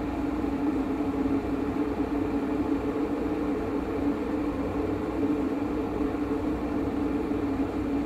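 Steady drone of an electric kettle at the boil, running off a Bluetti AC70 power station under about 1,030 watts of load, with the power station's cooling fan running.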